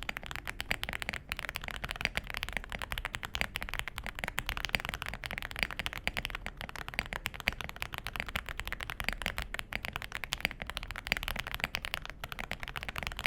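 Fast, continuous typing on a mechanical keyboard fitted with stock HMX Snow Crash linear switches, a rail bottom-out design in the style of Cherry MX, in an Aula F65 foam-filled plastic keyboard: a dense stream of keystroke clacks.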